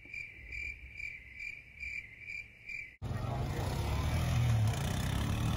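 A run of evenly spaced high-pitched chirps, a bit over two a second, for about three seconds. The chirps cut off suddenly and give way to a four-wheeler's engine running with a steady low rumble and wind noise.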